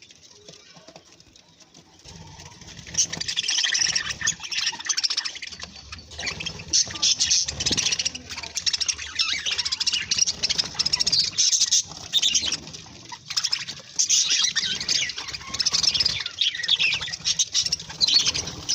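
Budgerigars chirping and chattering rapidly together, picking up about two seconds in and carrying on without a break.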